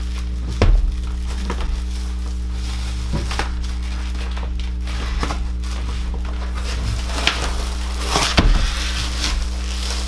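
Scattered clicks and knocks of plumbing parts being handled and fitted, over a steady low hum. The loudest knocks come about a second in, about three seconds in and near the end.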